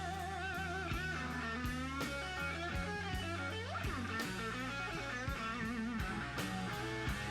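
Live slow-blues recording: an electric guitar plays a fill between vocal lines, with wide vibrato and a bent note rising about four seconds in, over bass and drums.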